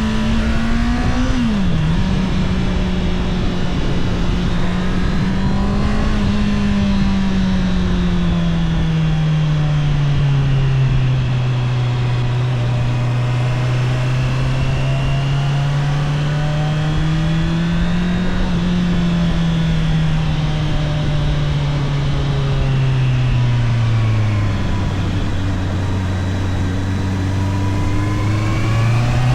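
Honda CBR650R inline-four engine on its stock exhaust, heard from the rider's seat while riding. The engine note dips briefly and recovers about a second and a half in, then slowly falls, rises a little about two-thirds of the way through, drops to its lowest pitch and climbs again near the end.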